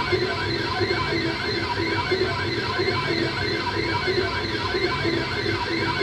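FLSUN S1 Pro delta 3D printer printing at high speed. Its stepper motors whine in an even, repeating rise and fall, a bit under twice a second, over the steady hiss of the cooling fans.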